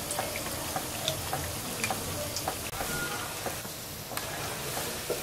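Battered smelt fish (kachki) pakoras deep-frying in hot oil: a steady sizzle with scattered small pops and crackles.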